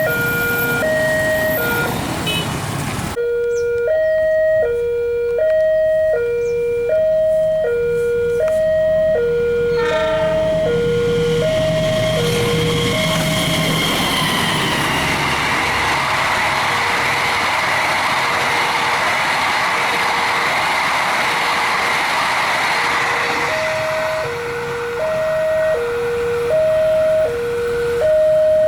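Railway level-crossing warning siren sounding a two-tone alarm that swaps between a higher and a lower note about twice a second. A diesel-hauled passenger train rumbles up and passes with a long rush of wheel and carriage noise that drowns the alarm for about ten seconds. The siren's two tones come back near the end.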